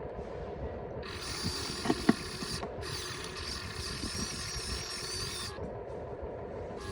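Radio-controlled model excavator's electric hydraulic pump whining, stopping and starting, with the whine wavering in pitch as it works; two sharp clicks about two seconds in.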